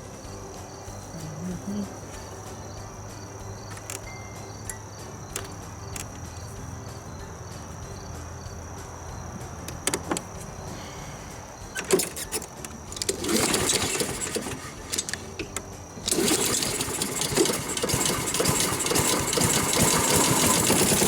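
Honda HRX217 walk-behind lawn mower engine being started for a test run, its blades freshly sharpened and reinstalled. After a quiet stretch it cranks briefly, then catches about sixteen seconds in and keeps running loud and steady.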